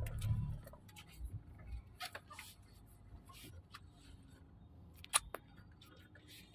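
Quiet car cabin with a faint low hum from the car, broken by scattered light clicks and taps; the sharpest click comes about five seconds in.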